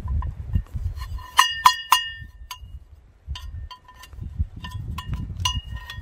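Metal air-cleaner cup of a tractor clinking and ringing as it is handled and knocked against the filter housing. A quick run of three loud clinks comes about one and a half seconds in, then lighter scattered clinks.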